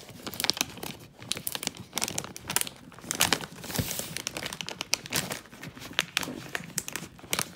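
Paper wrapping around a shipping box being crumpled and torn off by hand, a continuous irregular crackling and rustling with short tearing rips.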